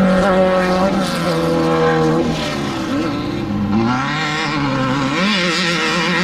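Off-road desert race vehicle engines running hard, their pitch holding high, dropping, then climbing again as they accelerate and ease off.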